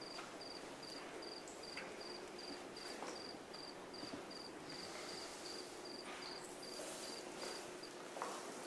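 A cricket chirping steadily, about two or three short high chirps a second, over faint hiss; the chirping stops shortly before the end, followed by a few faint knocks.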